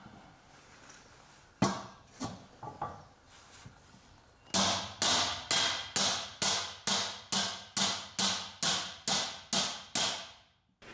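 Hand hammer striking the bottom of a carbon steel wok held over a metal dome form. A few scattered knocks of the wok against the form come first, then from about four seconds in a steady run of about fifteen hammer blows, a little under three a second, each ringing briefly.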